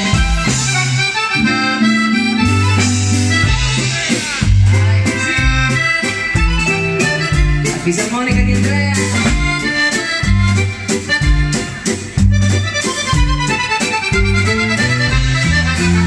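Live band music: a button accordion and a clarinet playing the melody over a bass line and a drum kit keeping a steady beat.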